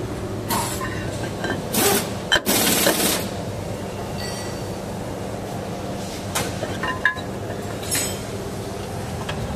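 Metal scraping and sharp clinks as a new steel brake disc is slid onto the wheel hub and the brake pads and caliper bracket are fitted against it, over a steady low background hum. The scrapes fall in the first three seconds; the clinks ring out a few times later on.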